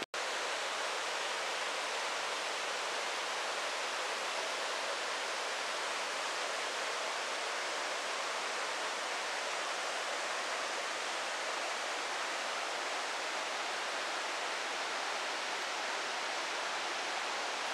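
Steady, even rushing of flowing water, like a mountain stream running over rocks.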